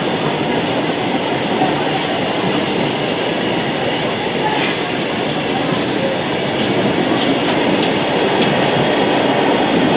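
Freight train wagons rolling past at close range: a loud, steady rumble and rattle of wheels on rail, with faint clicks over the rail joints and brief wheel squeals.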